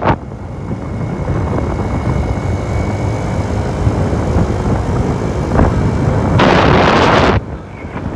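Wind buffeting the microphone on a moving scooter over a steady low rumble, with a faint thin whine. About six and a half seconds in, a loud gust of wind noise rushes across the microphone for about a second.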